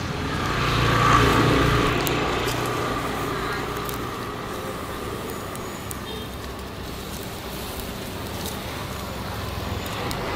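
A motor vehicle passing close by on the street. Its engine rumble and road noise swell to a peak about a second in, then fade away slowly.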